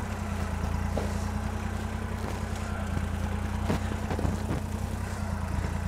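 Farm tractor engine running steadily at low speed while pulling a poly-pipe laying rig, with a few faint scrapes of a shovel in dry dirt about two-thirds of the way through.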